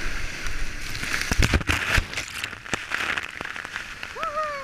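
Rushing whitewater with splashing and sharp knocks as a kayak runs down a waterfall drop. A short falling shout comes near the end.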